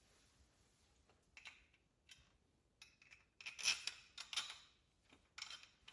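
Small clicks and rattles of metal screws and plastic 3D-printed parts being handled, a few scattered at first and a denser cluster about three and a half seconds in.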